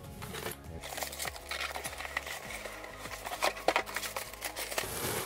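Plastic bag crinkling and cardboard scraping as a boxed item is pulled out of a shipping carton, with a cluster of sharper crackles about three and a half seconds in.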